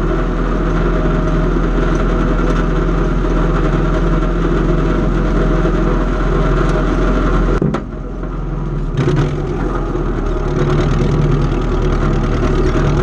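Engine of antique farm equipment running steadily. Its sound drops for about a second roughly eight seconds in, then comes back.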